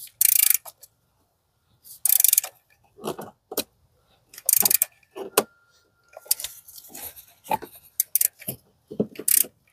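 Ratchet with a 12 mm socket tightening a bolt on the ignition coil bracket: four short bursts of fast clicking from the pawl on the back-swings, with scattered metal knocks and taps from the tool between them. The bolt is going in stiffly.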